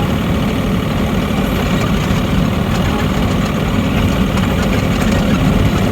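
Mini excavator's diesel engine running steadily at an even, mostly low-pitched note.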